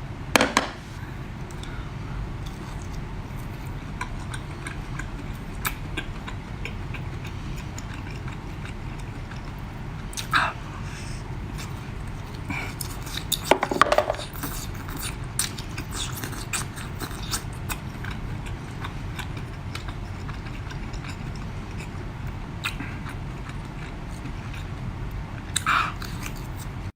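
A person chewing and biting food close to the microphone, with many small wet mouth clicks over a steady low hum. A few louder short eating sounds come about ten, fourteen and twenty-six seconds in.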